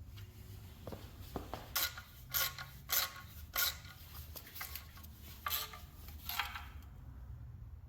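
Metal hand tools and bolts clinking and rattling against metal as bolts are fitted into an engine adapter plate: a run of short metallic clicks about every half second, then a few more near the end.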